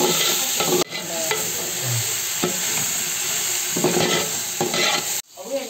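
Onions and tomato sizzling in hot oil in a pan while being stirred and scraped with a spoon, a steady frying hiss with short scraping strokes. The sound drops out abruptly twice, about a second in and near the end.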